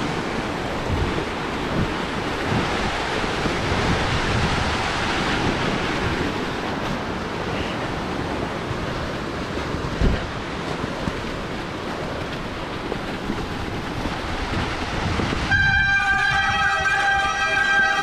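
Mountain bike rolling over a crusty, snow-covered trail: tyre noise on the snow and the bike rattling, with occasional knocks, one heavier about two-thirds of the way in. Near the end the rolling noise gives way to a steady high tone with overtones.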